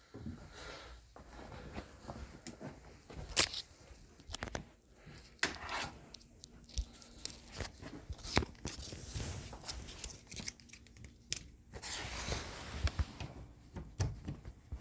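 Handling noises: scattered clicks, knocks and short bursts of rustling, with no motor running.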